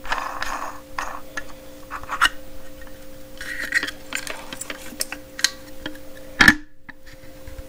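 A 6-inch cutoff disc being fitted onto a Milwaukee angle grinder's arbor and the flange nut threaded on by hand: light metal clicks, taps and scraping, with one sharper knock about six and a half seconds in. A faint steady hum runs underneath.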